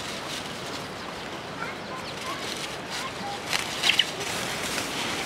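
Rural outdoor ambience with faint, scattered bird chirps, and a few sharp crackling clicks about three and a half to four seconds in.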